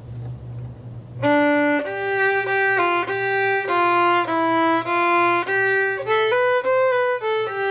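Solo violin starting about a second in, playing a simple melody as a run of separate notes about half a second each, with short bow strokes that stay in one small part of the bow: playing with too little bow.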